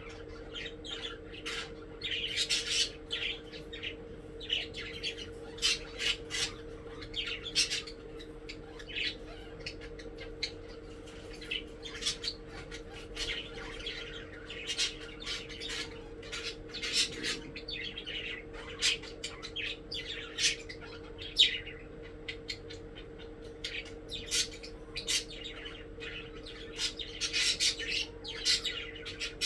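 Several pet budgerigars chirping and squawking in quick, irregular bursts of short calls, over a faint steady hum.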